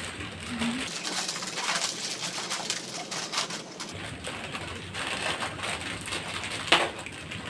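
Foil snack packets crinkling and rustling as they are torn open and handled, in a run of quick irregular crackles, with a couple of louder crackles near the end.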